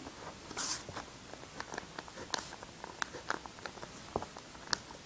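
Faint ballpoint pen writing and drawing on notebook paper: scattered light ticks and scratches, with a brief rustle of paper and cardboard about half a second in.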